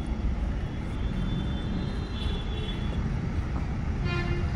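A low, fluttering rumble throughout, with a brief faint higher-pitched tone a little before the end.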